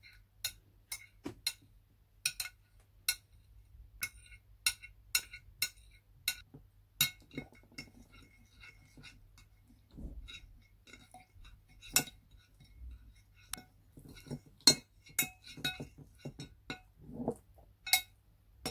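A utensil clinking against the side of a bowl while stirring homemade slime, in irregular sharp clinks with a short ring, one or two a second.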